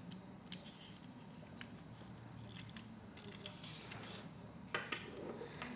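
Lego Technic plastic pieces being handled and pressed together: scattered small clicks and taps, the sharpest pair about five seconds in.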